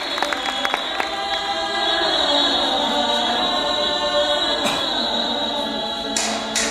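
Music for a Russian Romani dance: several voices singing together in long, held notes, like a choir. A few sharp clicks come in near the end.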